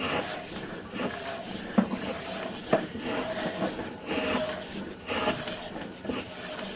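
Sewer inspection camera's push cable being fed down a drain line, with irregular clicks, knocks and scraping.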